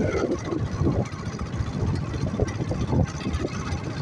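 Wind buffeting the phone's microphone on an open beach, an uneven low rumble that swells and drops irregularly.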